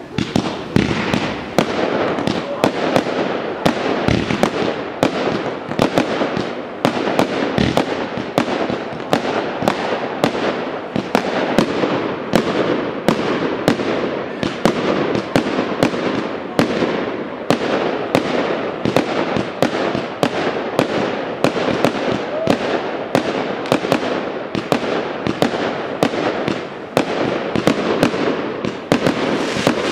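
Fireworks display: a rapid, continuous run of bangs from bursting fireworks, about two a second, over a steady crackle.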